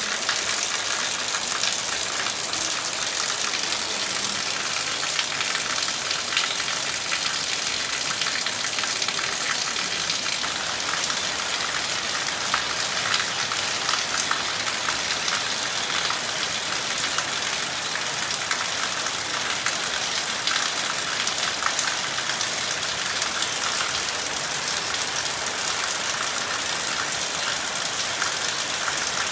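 Heavy rain falling steadily on trees and the ground: a dense, even hiss with many fine drop ticks.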